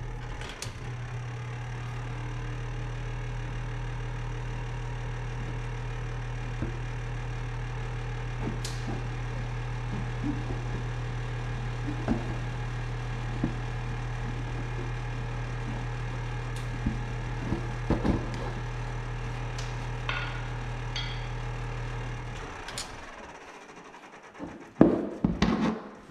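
Electric hot-air blower running with a steady hum while it heats a plastic bumper cover to soften it, with a few small clicks. It cuts off about 22 seconds in, and knocks and rubbing on the bumper cover follow.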